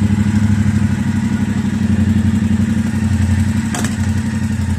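Yamaha Ténéré 700's parallel-twin engine idling steadily just after start-up, with one brief sharp click near the end. The owner hears an annoying noise from around the front sprocket, though the chain and its tension have been checked.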